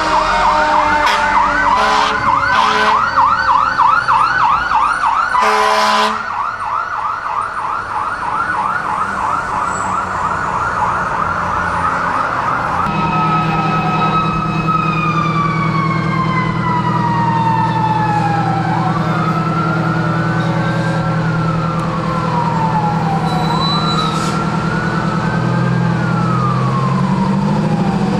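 A fire engine's fast warbling yelp siren with short horn blasts, the longest about six seconds in. About halfway through it gives way to a vintage American LaFrance ladder truck's engine running, under a siren that winds slowly down, up and down again.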